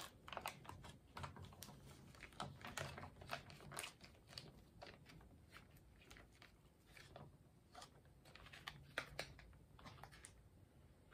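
Faint, irregular crinkling and crackling of a ration food pouch being squeezed and handled, with small ticks and taps. The crackles are busiest over the first few seconds and again shortly before the end.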